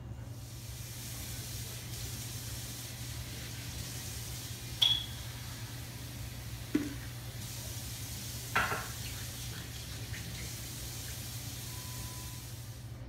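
A steady, watery hiss, with a sharp click about five seconds in and two softer knocks a few seconds later.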